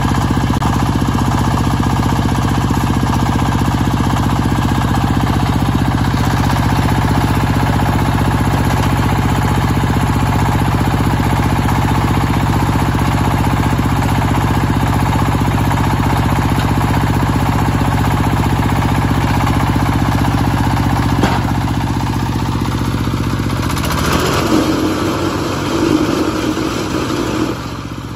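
Small horizontal single-cylinder diesel engine running steadily. About four seconds before the end a higher rattling hum from the concrete block machine joins for a few seconds.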